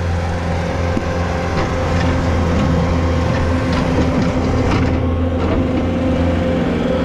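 Skid steer loader's engine running steadily up close while its bucket works broken slabs of old asphalt, with scattered knocks and scrapes of asphalt chunks against the steel bucket.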